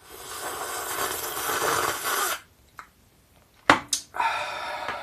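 A long, loud slurp of soup lasting about two and a half seconds and stopping abruptly, followed a little later by two sharp knocks and a second, shorter noisy sound.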